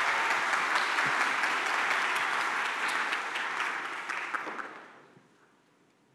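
Audience applauding, many hands clapping at once, dying away about five seconds in.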